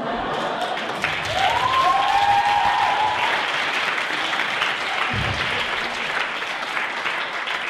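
Audience applauding, with a couple of rising-and-falling calls over the clapping about one to three seconds in.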